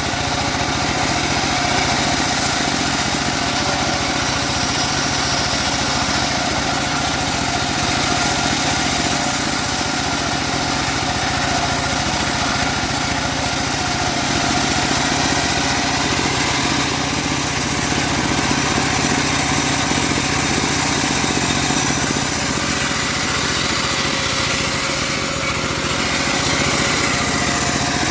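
Engine-driven homemade band sawmill running steadily under a constant load, with no pauses.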